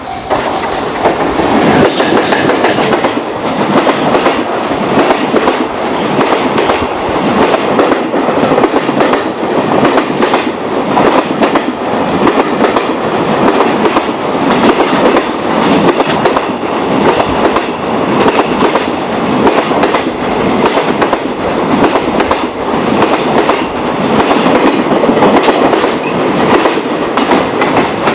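Long freight train passing close by at speed, its wheels clattering over the rail joints in a steady, rapid run of clicks and thuds.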